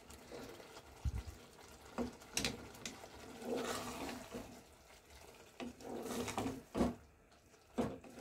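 Wooden spoon stirring a thick, simmering sauce in a saucepan as chopped capsicum is tipped in, with the wet churn of the sauce and several sharp knocks of the spoon against the pan.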